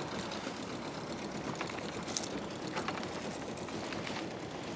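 Steady low noise of a small boat on the water, with a few faint clicks and taps scattered through it.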